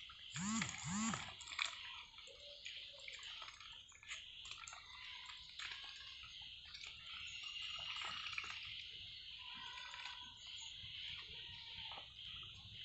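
Domestic ducks dabbling with their bills in shallow muddy water, making many small splashing and slurping clicks. Two short quacks come about half a second in, over a steady high hiss.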